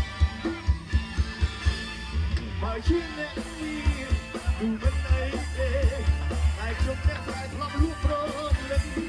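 Live pop music played loud over a concert sound system, with a heavy bass-drum beat under a singing voice.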